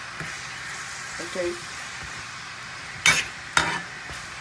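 Mixed vegetables sizzling in hot oil in a frying pan, with two sharp knocks of a metal spoon against the pan about half a second apart near the end.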